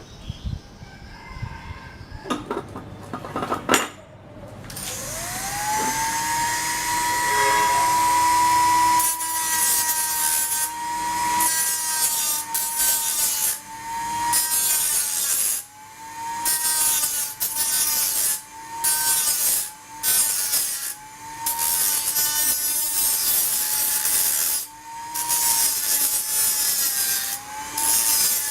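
A few knocks of handling, then a power tool's motor spins up and runs steadily. It cuts or grinds in repeated passes: a harsh rasping comes and goes every second or two, and the motor's pitch sags a little under each load.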